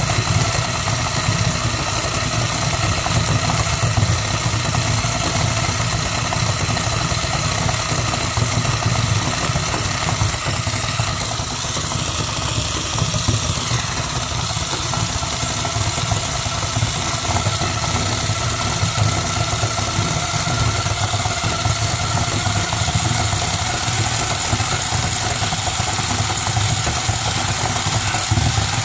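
Electric toy's small motor and gears running continuously with a steady mechanical buzz, powered from a bench power supply.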